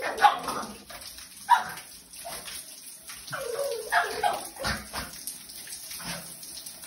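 Cavapoo puppy yipping and whimpering in excitement as it jumps at a shower spray, with two sharp yips early on and a run of whimpering yips in the middle, over the steady hiss of running shower water.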